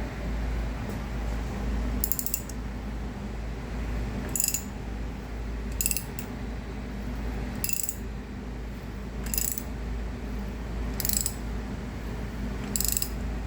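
A socket ratchet turning over the forged crankshaft of a 408 LS short block by hand, its pawl clicking in a short rattle on each return stroke, about every one and a half to two seconds. A steady low hum runs underneath.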